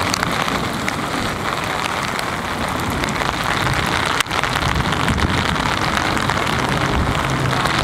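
Heavy rain falling on a wet race track, a steady hiss.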